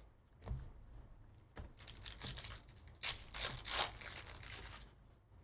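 Trading-card pack wrappers crinkling and tearing open in several short bursts of rustling, the loudest about three to four seconds in.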